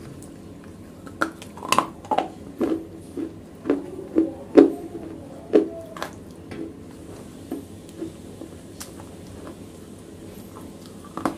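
Pieces of wet black slate crunched between the teeth and chewed right against a clip-on microphone. A run of sharp crunches comes about twice a second, then thins out into fainter chewing, with one more loud crunch near the end.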